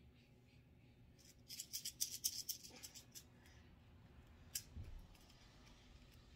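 Faint rustling and a quick run of small ticks from hand-sewing a button onto a dress, as needle and thread are pulled through the fabric and button, starting about one and a half seconds in; a single sharp click follows a little past the middle.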